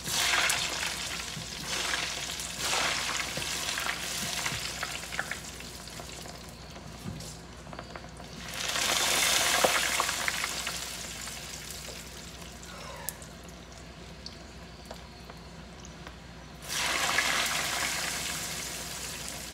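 French fries frying in hot oil, a steady sizzling hiss that swells louder about eight seconds in and again near the end.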